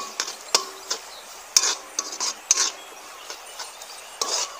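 A steel ladle scraping and clinking against a steel kadai while stir-frying onions, ginger, garlic and green chillies. The strokes are short and irregular, with a lull about three seconds in and a quick cluster near the end.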